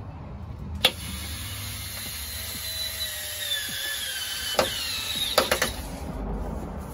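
Cordless drill running for about five seconds as it drives a screw into a wooden frame, its motor whine slowly dropping in pitch under load. A click sounds as it starts, and a few sharp clicks come near the end as it stops.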